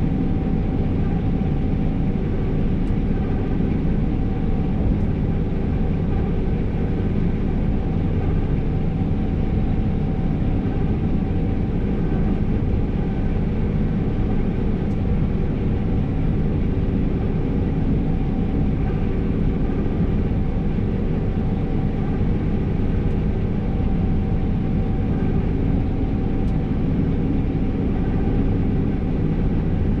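New Holland CR 5.85 combine harvester running steadily under load while harvesting, heard from inside the cab: a dense, even low drone of engine and threshing machinery with a faint steady whine above it.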